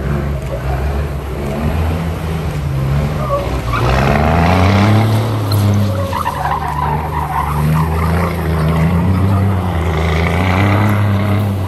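Scania truck tractor's diesel engine revving up and down as the truck spins doughnuts, its rear tyres skidding through loose dirt. The engine pitch climbs about four seconds in, eases off, then climbs again near the end.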